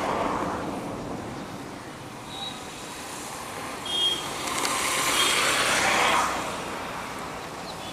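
Road traffic passing outdoors: a steady rush of motor vehicles, with one vehicle swelling louder and then fading about four to six seconds in.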